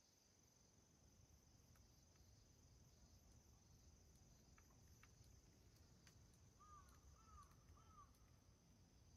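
Near silence: faint room tone with a steady high-pitched hiss, a few faint ticks, and three short faint chirps about seven seconds in.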